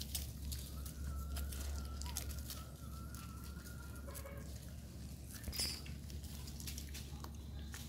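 Dry leaves crackling and rustling in quick, irregular clicks as macaques move and forage over leaf-strewn ground, with a faint, thin, high call held from about one to four seconds in.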